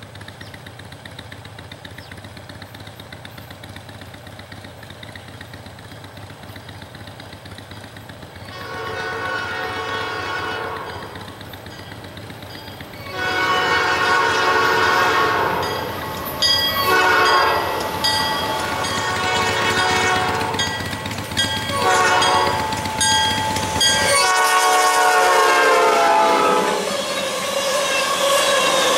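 EMD SD40-2 diesel locomotive approaching with a low rumble, then its air horn sounds a series of loud blasts, the last ones falling in pitch as it passes. Near the end, the steel wheels of empty tank cars roll by with a steady clatter.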